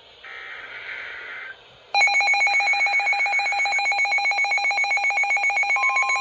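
Weather radio receiving an emergency alert: a buzzy, roughly one-second burst of the alert's digital data header, then about two seconds in the Midland WR-400 weather radio's own alarm goes off, a loud, fast, even beeping of several pitches at once. Near the end, the broadcast's steady single-pitch warning tone joins underneath.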